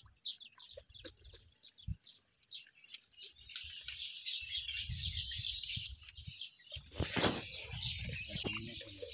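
Small birds chirping and twittering over and over, with a low rumble in places and a short noise about seven seconds in.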